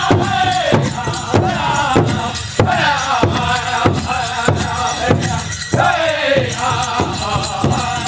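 Powwow drum group singing a chicken dance song: high voices in falling phrases over a steady unison beat on a large powwow drum, about two and a half beats a second.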